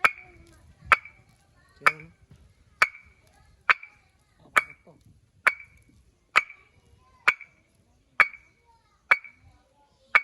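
Fired clay brick struck about once a second, a dozen times, each blow giving a sharp, clear, briefly ringing clink. This is the metallic sound taken as the sign of a well-burnt first-class brick.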